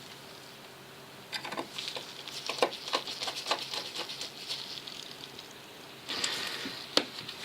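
Small irregular clicks and scrapes of metal parts being handled on a folding knife, with a single sharp click near the end.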